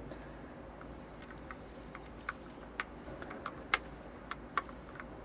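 Potassium chlorate granules poured into a glass test tube: a scatter of small sharp clicks and ticks, the loudest about three and a half seconds in.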